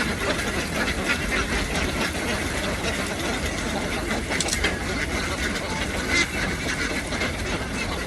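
A large flock of ducks quacking continuously, many calls overlapping into a steady din.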